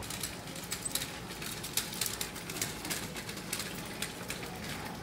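Footsteps tapping on wet cobblestones in a pedestrian street: irregular sharp taps and clicks, several a second.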